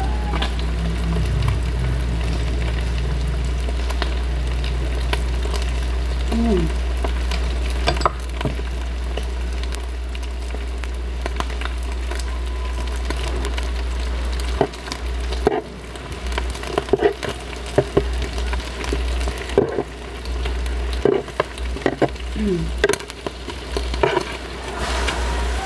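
Squid and pork sizzling on an electric grill pan, with metal tongs clicking against the pan now and then.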